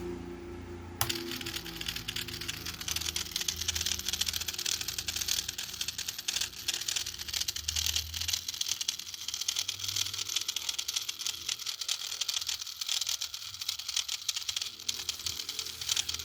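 Microwave oven motor making a noisy, fast continuous clicking rattle over a low hum, starting suddenly about a second in.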